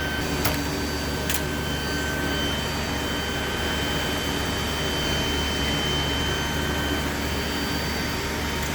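Steady whirring drone of the cooling fans on running GPU mining rigs, with a few thin steady whines. Two short sharp clicks sound in the first second and a half.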